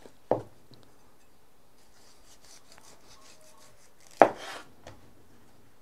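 Knife trimming fat off raw lamb necks on a cutting board: faint scraping strokes of the blade, with two sharp knocks, one just after the start and a louder one about four seconds in.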